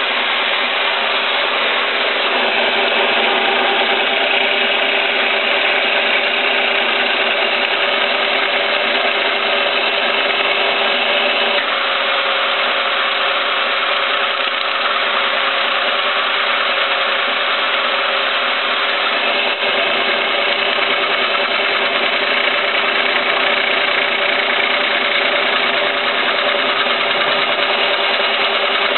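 Milling machine running and cutting into a welded-up steel part, a steady continuous machining noise with a slight change in tone about twelve seconds in.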